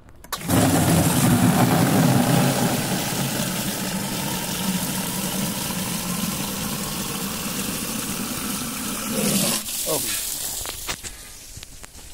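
Water from an outdoor tap running hard into a plastic watering can, filling it. The flow starts about half a second in and is shut off about ten seconds in.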